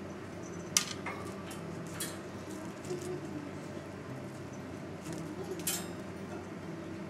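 A few sharp clicks and knocks over a steady low hum, the loudest about a second in and another near the end.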